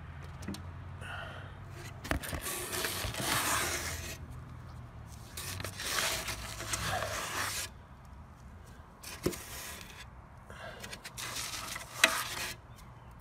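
Several bursts of rubbing and scraping, each lasting a second or two, with scattered clicks: cloth rubbing against the camera and its microphone as the camera is handled.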